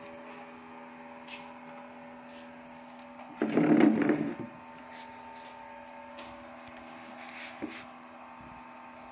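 A wooden, glass-panelled door rattles and knocks in its frame for about a second, starting about three seconds in, as a crawling baby pushes and slaps against it. A few light taps come before and after, over a steady low hum.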